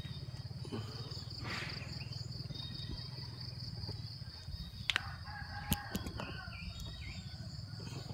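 A rooster crowing once, about five seconds in, with a few short bird chirps after it, over a steady high buzz and a low hum. Two sharp clicks come just before and during the crow.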